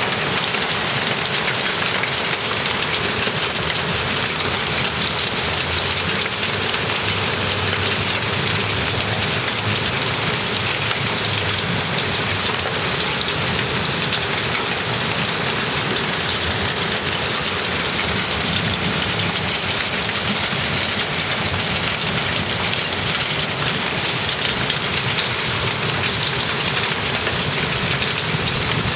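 Heavy thunderstorm rain pouring down in a steady, dense hiss.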